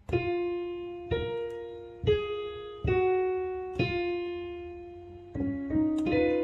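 Digital piano played slowly, a note or chord struck about once a second, each ringing and fading away, then a few quicker notes near the end.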